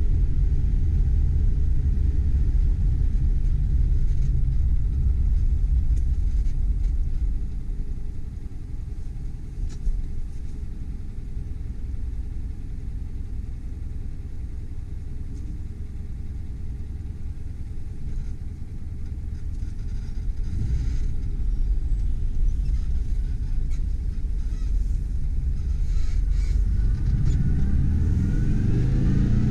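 Air-cooled flat-four engine of a 1969 Porsche 912 heard inside the cabin: running under way at first, dropping to a quieter idle while the car is stopped, then picking up again as it pulls away, its note rising near the end.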